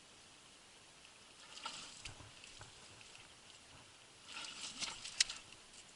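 Wet mud and water squelching and splashing in two short crackly bursts, about one and a half seconds in and a louder one about four and a half seconds in, ending in a sharp click.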